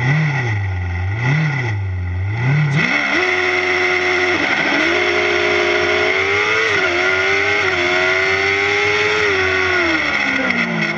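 Formula Student race car's engine heard from on board. It is revved up and down in an even rhythm at the start line. About three seconds in it launches under full throttle and climbs through the gears, with two quick upshifts about two and four seconds after launch. The revs fall away near the end as the 75 m acceleration run finishes.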